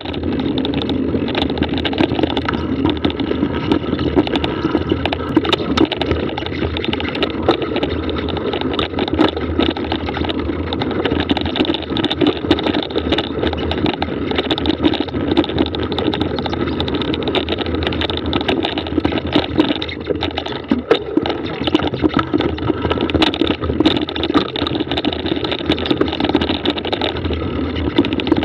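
Mountain bike rolling over a rough dirt track: a steady rumble of tyre and wind noise with frequent small rattles and knocks as the bike jolts over the ground.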